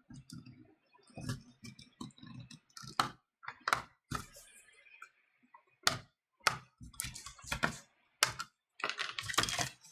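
Plastic clips of a tablet's back cover clicking and cracking as the case is pried open, in a string of irregular sharp snaps.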